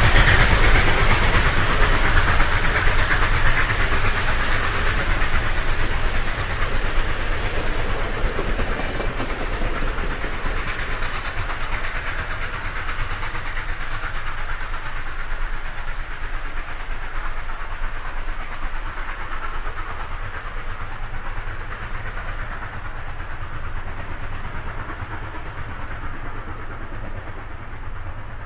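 Train sound effect: a train running steadily, slowly growing quieter and duller as it draws away.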